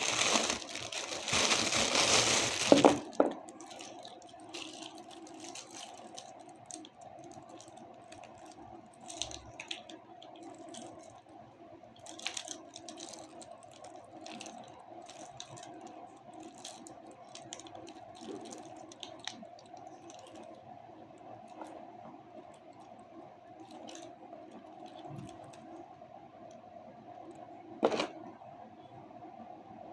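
Plastic packaging crinkling and rustling loudly for about three seconds, then quieter scattered clicks and light rustles as the package contents are handled, over a steady low hum. A single sharp click near the end.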